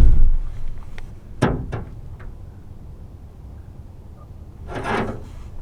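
A few knocks and rubbing sounds, as of gear being handled against a boat: a heavy knock at the start, a sharper one about a second and a half in, and a longer scrape near the end.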